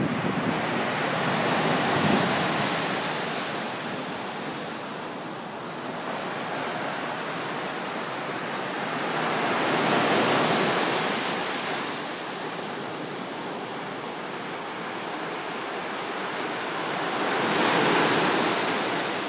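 Ocean surf breaking and washing up the beach among wooden pier pilings, a steady rush that swells three times, about every eight seconds, as each wave comes in.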